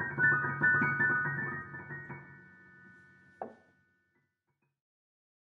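Piano music: a few sustained notes ring and fade away, followed by one short sharp sound about three and a half seconds in, after which the music ends.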